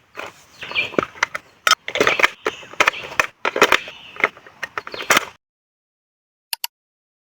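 Hands handling a plastic toy and its packaging: an irregular run of clicks, taps and rustles that cuts off suddenly about five seconds in, followed by silence broken by two quick clicks.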